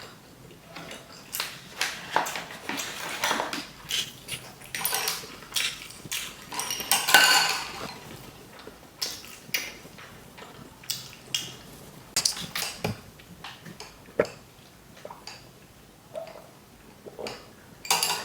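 Close-miked eating: irregular bites and chewing of food, mixed with clinks of utensils against a dish.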